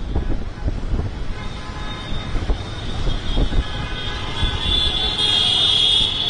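A large convoy of motorcycles riding with a low rumble of engines; horns start sounding about a second and a half in and build into a loud, steady blare of several horns near the end.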